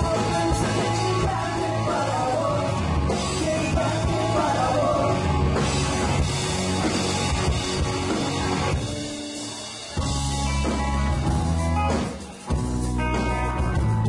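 Live rock band playing: electric guitars, bass and drum kit with a woman singing. About nine seconds in, the bass and drums drop out, then the full band comes back in at once a second later, with another very short break a couple of seconds after.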